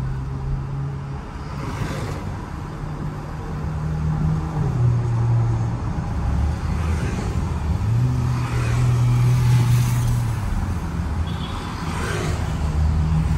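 Bentley Bentayga driving in city traffic: a steady low engine and road hum that steps up and down in pitch a few times, with passing vehicles swelling past now and then.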